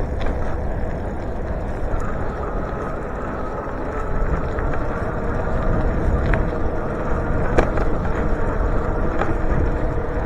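Riding noise from a moving bicycle: wind on the microphone and tyres on the road as a steady rush, with a faint steady hum and a few light ticks.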